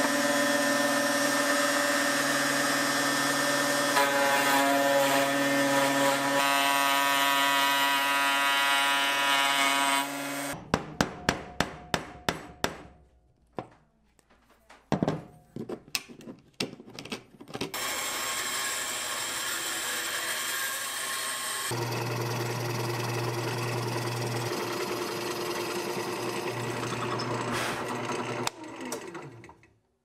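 A router running in a router table for about ten seconds, cutting a groove in walnut blocks. Then comes a quick run of sharp taps and scraping as a chisel pares the groove clean, and after that a drill press motor runs steadily until near the end.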